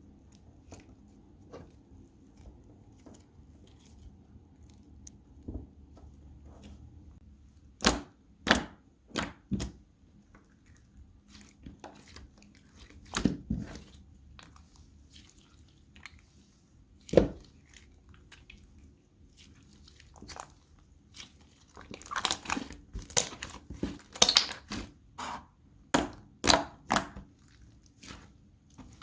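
Clay-mixed slime being pressed and stretched by hand, giving scattered sharp pops and crackles that come thick and fast in the last third.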